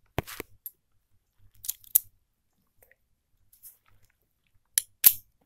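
Sharp metal clicks and scrapes of handcuffs being worked with a hair barrette pushed into the cuff: a cluster at the start, another around two seconds in, and two close together near the end.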